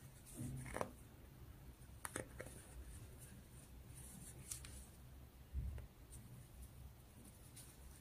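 Faint rustling and small scattered clicks of cotton yarn being worked with a 3.5 mm metal crochet hook, stitch by stitch, with a soft low bump about two-thirds of the way through.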